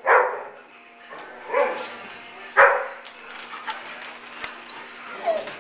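Dogs barking in play: sharp barks right at the start, about a second and a half in and again just after two and a half seconds, then a softer bark near the end.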